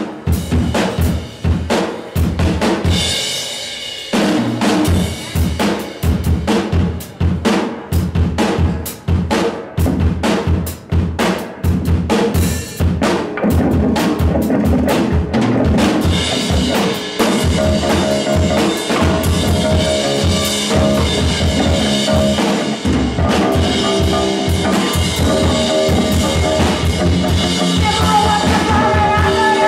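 Live rock band: a drum kit played in a fast, busy pattern of dense hits, with sustained instrument notes coming in over the drums about halfway through.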